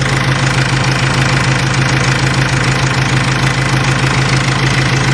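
Mercedes W203 C220 CDI diesel engine idling together with its electric radiator cooling fan: a steady, loud drone with a fast, even pulse.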